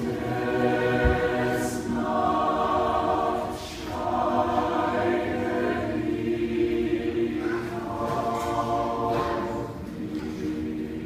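Mixed choir of men's and women's voices singing sustained chords, in a few phrases with short breaks between them.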